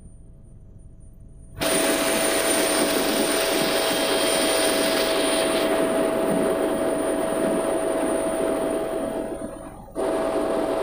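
Helicopter cabin noise in flight: a steady rush of rotor and engine with a steady turbine whine. It is faint for the first second and a half, then comes in loudly, and drops out briefly near the end.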